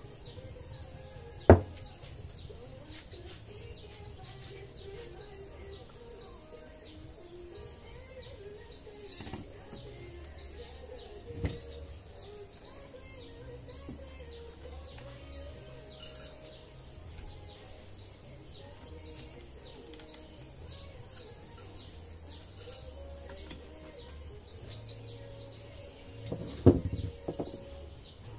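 A bird chirping over and over, short high chirps about twice a second. Sharp knocks sound as the angle grinder and its disc are handled, loudest about a second and a half in and again near the end; the grinder itself is not running.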